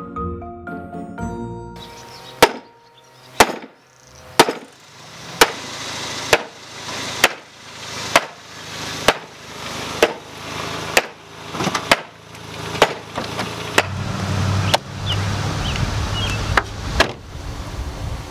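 A run of sharp striking blows, about one a second, each preceded by a short rising rush of noise, with a low rumble under the last few. Marimba-like musical notes play in the first two seconds before the blows begin.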